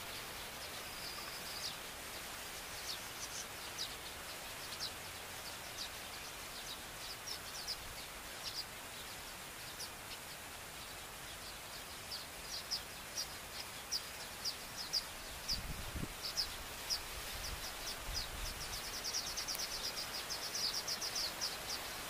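Baya weaver calling: short high chirps, scattered at first, then running together into a fast chattering trill near the end, with a brief thin held note about a second in. Steady background hiss and a few low bumps on the microphone.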